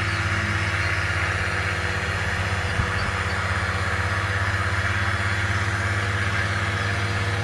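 An engine running steadily at idle, a constant low hum, with one faint click about three seconds in.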